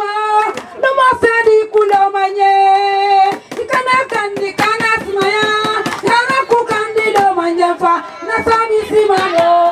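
A group of women singing one high melody line in long held notes, with many sharp hand claps.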